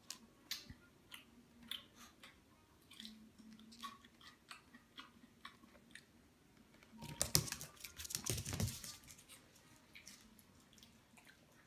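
Chewing of crunchy food: scattered sharp crunches and clicks, then a louder, denser stretch of crunching and rustling about seven seconds in that lasts about two seconds.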